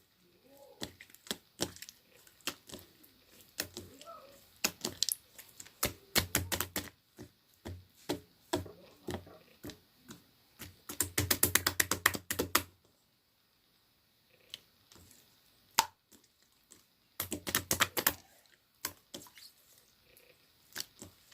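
Rapid sharp clicks and taps in irregular bursts. The densest run lasts about a second and a half, about eleven seconds in.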